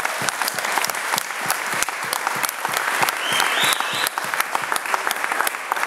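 Audience applauding: dense, rapid hand clapping.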